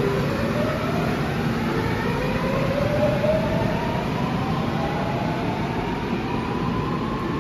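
Seoul Subway Line 7 first-batch 7000-series train pulling away from the platform. Its traction motor whine climbs steadily in pitch as it gathers speed, several tones rising together over a running rumble.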